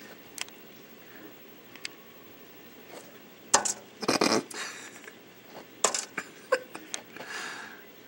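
Sharp knocks and taps on window glass, the loudest a little after three and a half seconds, then a quick burst of knocks around four seconds and a few more between six and seven seconds: a robin repeatedly flying into the window pane.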